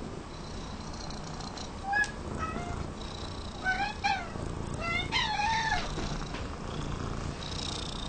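Orange tabby cat giving about five short, high-pitched meows and chirps, starting about two seconds in, the last one the longest, over steady low purring. The cat is begging for food or treats.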